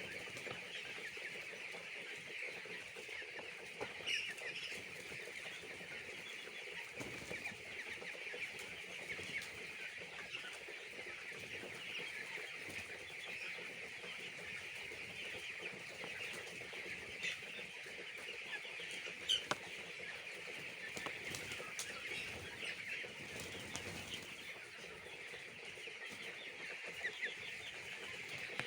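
A large flock of broiler chicks peeping continuously, a dense chorus of overlapping high chirps, with a couple of short sharp knocks about a third and two thirds of the way through.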